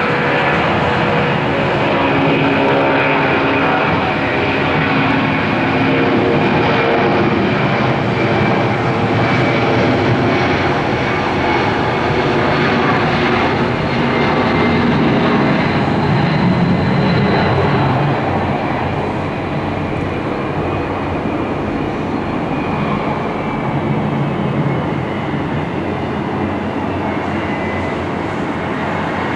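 Jet airliner engines running loudly: a steady rushing noise with a high whine on top that slides slightly lower in pitch, easing off a little after about eighteen seconds.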